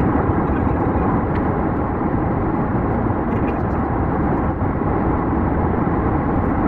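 Steady drone of a Scania S580 truck's V8 engine with road noise at motorway cruising speed, heard from inside the cab.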